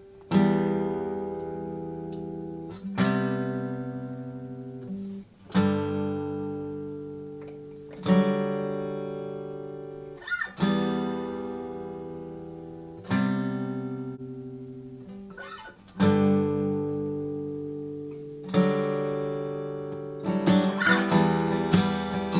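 Martin custom Style 28 steel-string acoustic guitar with a bearclaw Sitka spruce top and Madagascar rosewood back and sides: single chords strummed about every two and a half seconds and left to ring out. Near the end it moves into quicker rhythmic strumming.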